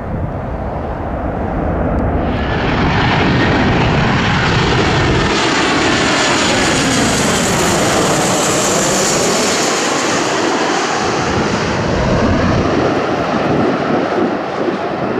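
Jet engines of an American Airlines Boeing 737 on final approach, passing low overhead. The rushing engine noise with a high whine swells about two seconds in and peaks with sweeping, wavering tones as the jet goes over about halfway through, then eases off slightly as it flies on toward the runway.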